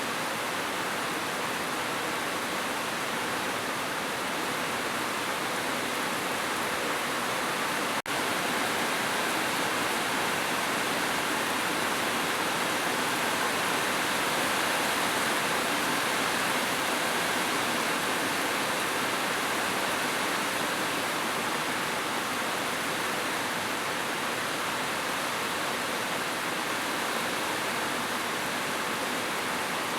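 Steady, even rushing of flowing water, unchanging throughout, with a brief dropout about eight seconds in.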